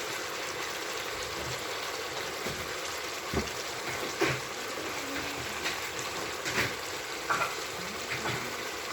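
Chicken pieces sizzling steadily in red palm oil in a pot, with a few short knocks and clatters scattered through.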